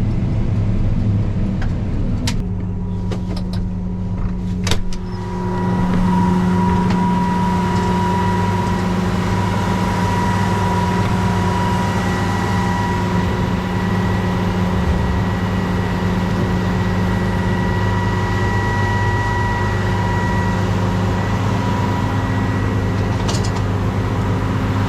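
Combine harvester running steadily while unloading corn, its engine humming under a steady high whine that sets in about five seconds in. A few sharp clicks or knocks come in the first few seconds.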